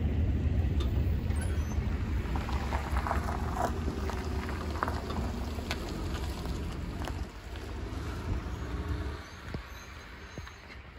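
Low rumble of a train moving away past a grade crossing, fading steadily, with scattered clicks and squeaks over it. Near the end a car drives over the crossing.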